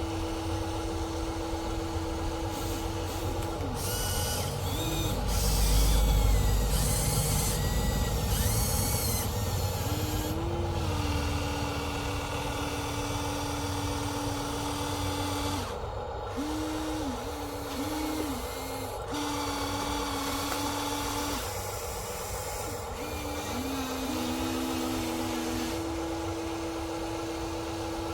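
Small electric motors of radio-controlled construction models whining, holding a steady pitch then dipping and shifting as they change load. A louder low rumble with rattling comes about five to nine seconds in.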